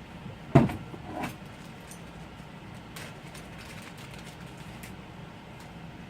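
Two knocks about two-thirds of a second apart, the first loud and sharp, then a few faint clicks, as small objects are handled and set down on a workbench, over a steady low hum.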